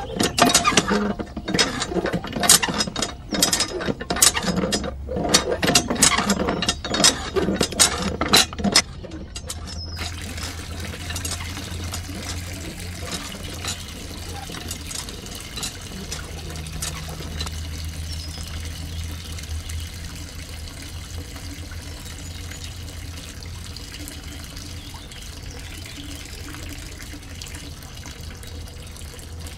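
Water gushing and splashing in pulses, about two a second, as a miniature hand pump is worked; after about nine seconds it settles into a steady trickle of water running down a chute into a small trough, with a faint low hum underneath.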